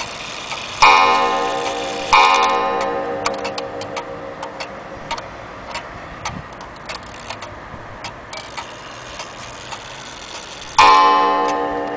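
Antique Vienna wall clock's coil gong struck twice about a second apart, each blow ringing out and slowly dying away, then struck once more near the end. The clock's movement ticks steadily underneath.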